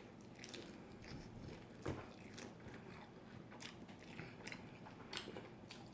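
Faint eating sounds of a person biting and chewing fried chicken, with a few scattered soft clicks of the mouth.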